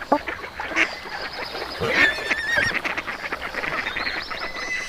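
Farmyard poultry calling: a chorus of geese honking and other fowl squawking, with overlapping short calls and a warbling bird call about two seconds in.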